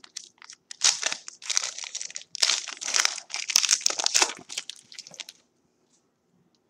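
A football trading-card pack's wrapper being torn open and crinkled by hand in a dense run of quick crackles, which stops about a second before the end.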